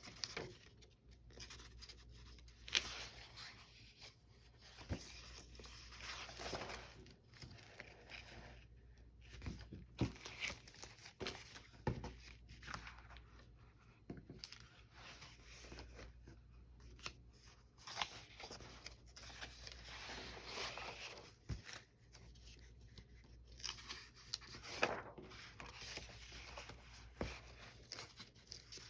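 Paper rustling and scraping in short irregular spells, with a few light taps, as old paper doll books and loose cut-out paper pieces are handled and leafed through.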